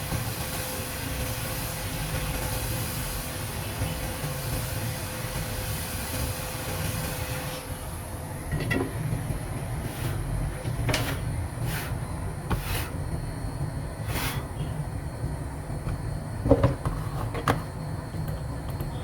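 A steady hiss over a low hum that drops off about eight seconds in, followed by scattered sharp clicks and knocks from handling tools and parts on the workbench.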